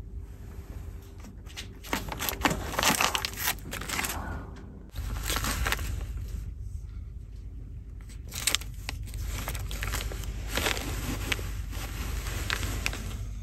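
Plastic snack wrappers and packaging crinkling in irregular bursts as they are handled, over the ferry's low steady drone.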